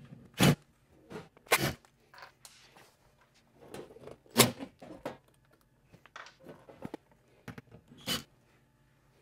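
Screws being backed out of a steel electrical panel cover with a cordless drill, with a few sharp metallic knocks and clatters as the cover is handled.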